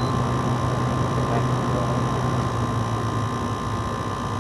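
2017 LG 6000 BTU window air conditioner running steadily with its compressor and fan on, cooling: a constant low hum under an even whooshing of air, with a steady tone on top.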